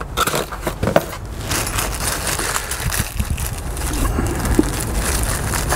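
Thin plastic bag crinkling and rustling as it is handled and opened to get out the small mounted grinding stones, a steady crackle throughout.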